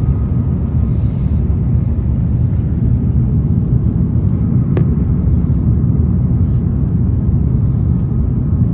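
Steady low rumble of an airliner's engines and airflow heard inside the cabin as the plane comes in to land, with a single sharp click about five seconds in.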